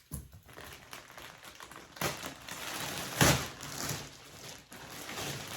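Rustling and handling noises as a comforter and its packaging are handled, with a louder rustle about three seconds in.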